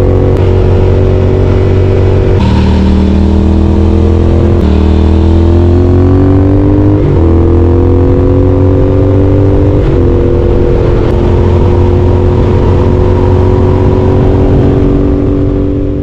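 Triumph Speed Twin's parallel-twin engine through an aftermarket exhaust, heard from the rider's seat while accelerating: the exhaust note climbs and then drops sharply at each of four upshifts, then holds steady. It fades out near the end.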